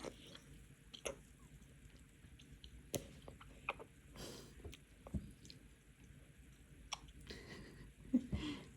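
A young child quietly chewing a bite of cake, with scattered small mouth clicks and a couple of soft breaths.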